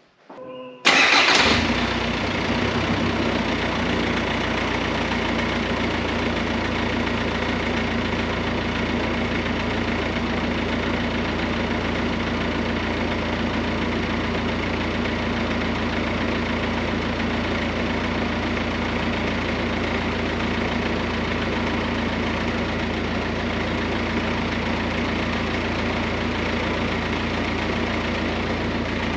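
VW Crafter van's diesel engine starting about a second in, then idling steadily. It runs with no exhaust fitted.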